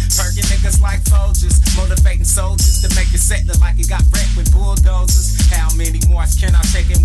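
Hip hop track playing: a rapped vocal over a heavy bass line and a steady drum beat.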